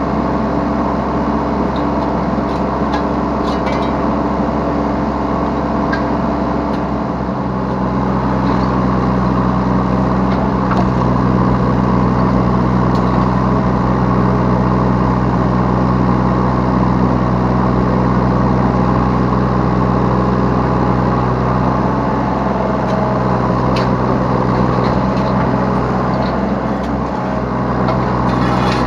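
Yanmar B3 Sigma 3-ton mini excavator's diesel engine running steadily under hydraulic load as it digs and loads, heard from the operator's seat. The engine note rises and gets louder about eight seconds in, with a few light knocks along the way.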